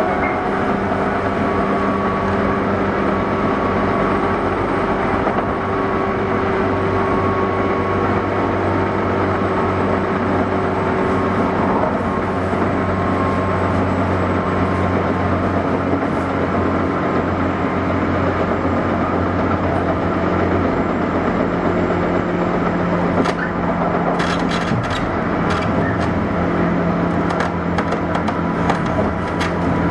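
Interior running noise of a JR 201-series electric train, heard inside a motor car: a steady low hum of the traction motors and wheels on rail with a few faint steady tones. In the last several seconds a scatter of short clicks and knocks rides on top.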